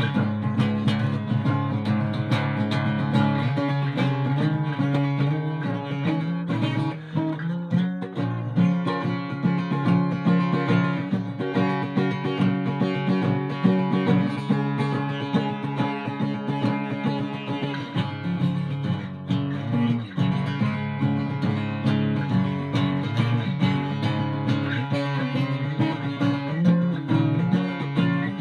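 Ovation Applause AE27 acoustic guitar played unplugged: an instrumental piece of picked and strummed chords with no pauses.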